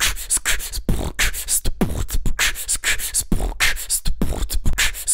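A beatbox-style rhythm: deep kick sounds that drop in pitch, sharp snare-like snaps and hissing hi-hat sounds in a steady beat.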